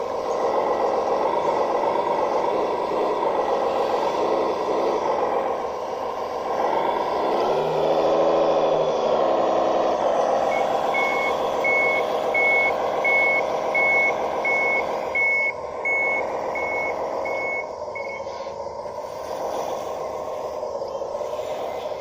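A 1:12-scale bulldozer model running, its drive whining and wavering up and down in pitch, with a dip about 7 to 10 seconds in. From about halfway through, a reversing beeper sounds about a dozen short beeps, roughly one every 0.7 seconds, then stops.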